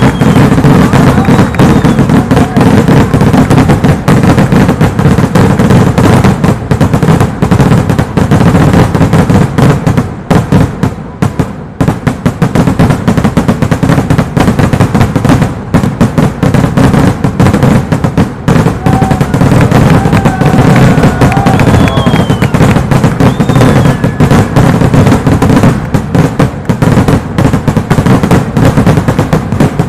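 Dense barrage of festival firecrackers going off in rapid, unbroken succession, bangs and crackles packed so tightly they run together, easing slightly partway through before picking up again.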